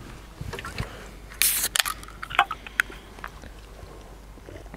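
An aluminium can of hard seltzer cracked open: a short, sharp hiss about a second and a half in, followed by a few light clicks and handling sounds of the can.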